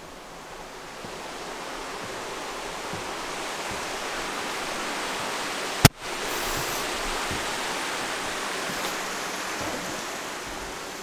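Steady rushing of a nearby waterfall and stream, heard from inside the log cabin, swelling slightly after the first second. A single sharp click cuts through about six seconds in.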